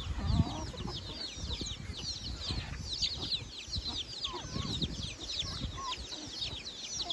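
Native chickens feeding as a flock: many young birds peeping with quick, high, falling cheeps, and hens clucking softly now and then.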